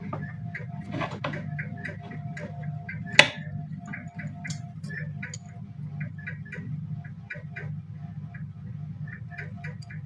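Mini tube cutter being turned around a refrigerator evaporator pipe, giving quick, irregular clicks and ticks, with one sharp louder click about three seconds in. A steady low hum runs underneath.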